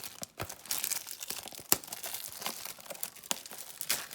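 Plastic wrapping on a trading card display box crinkling and tearing as it is pulled open by hand, in quick irregular crackles, with one sharp crack near the middle.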